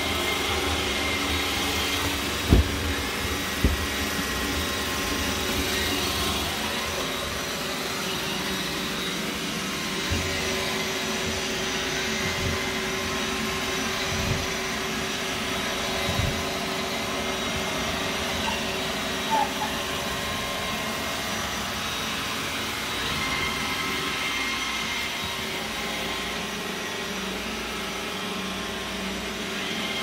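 iRobot Roomba robot vacuum running over a hardwood floor: a steady motor and brush whine with a hiss. Now and then there is a short knock, the loudest about two and a half seconds in and weaker ones scattered later.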